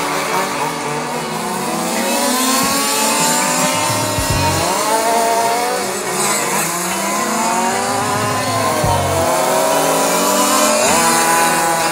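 Several quarter-scale RC race cars' Zenoah 270RC two-stroke petrol engines revving and easing off as they go through the corners, their pitch rising and falling and overlapping.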